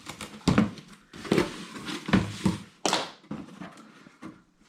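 Packaging being opened by hand: rustling and tearing with several sharp knocks.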